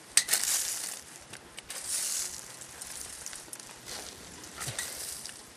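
Rustling and scraping of soil and dry leaf litter as hands dig out an underground wasp nest, in short crackly bursts: the loudest right at the start, another about two seconds in, and one near the end.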